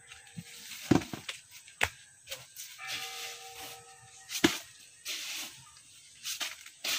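Three sharp knocks, about a second, two seconds and four and a half seconds in, with stretches of rustling, scraping noise between them.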